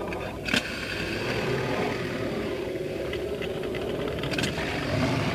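A steady low mechanical hum, with a sharp click about half a second in and a few lighter clicks later on.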